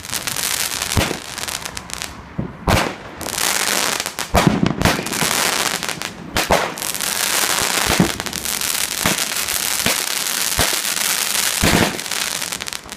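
Lightning Force fireworks going off: dense crackling throughout, with a loud bang every second or two.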